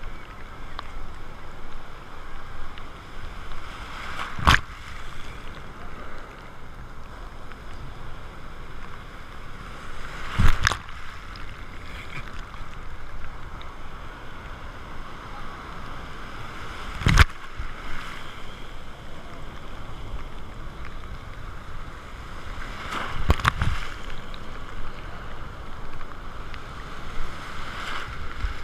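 Breaking surf and churning water heard at water level, with four sharp slaps as waves strike the camera, about one every six seconds.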